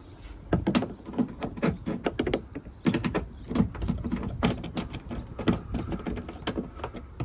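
Irregular, quick clicks and light knocks of a socket wrench ratcheting bolts in to secure the liftgate handles, several clicks a second.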